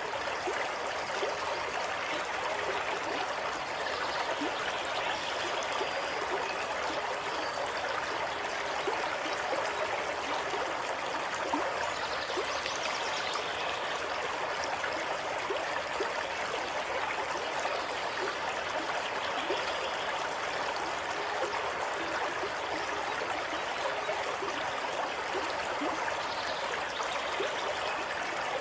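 Running water of a small stream, a steady rush with fine splashes that holds an even level without swells.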